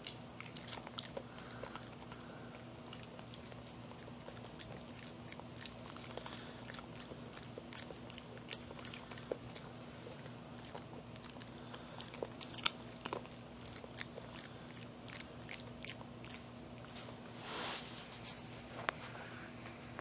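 Boston terrier chewing a raw carrot, a run of irregular sharp crunches as its teeth break the carrot.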